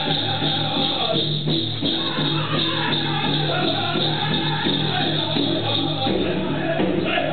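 Powwow drum song: a steady drumbeat with high, strained group singing.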